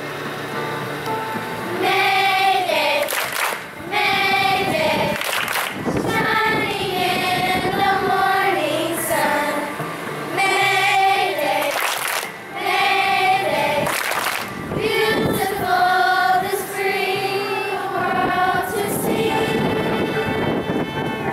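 Children's school chorus singing a song together, in phrases of held notes with short pauses for breath between them.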